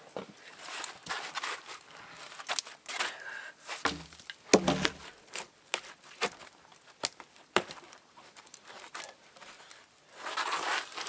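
Upright wooden log posts being rocked and wrenched loose from the ground by hand: repeated wood-on-wood knocks, creaks and scraping. A heavy thump about four and a half seconds in is the loudest sound, and there is rustling near the end.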